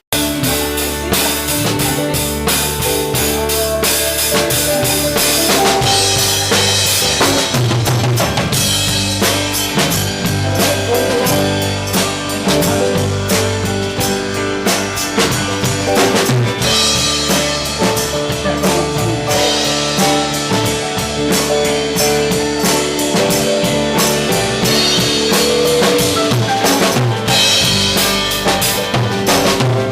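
Live band playing a song, starting abruptly: a drum kit with kick drum and snare keeps a steady beat under bass and other pitched instruments.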